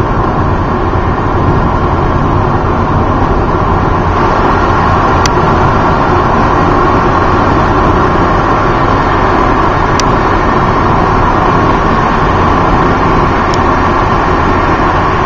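Steady road noise inside a moving car's cabin: tyre and engine noise at highway speed.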